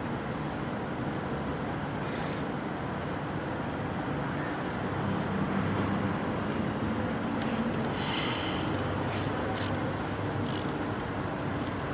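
Steady workshop background noise. A few light clicks and taps come about nine to eleven seconds in, from bolts being fitted to the camshaft timing parts of a 2GR-FE V6 engine.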